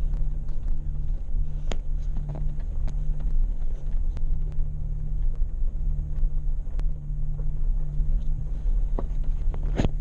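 Jeep engine running at low speed while driving over a rough dirt track, a steady low rumble with scattered clicks and knocks from the bumpy ground, the sharpest one near the end.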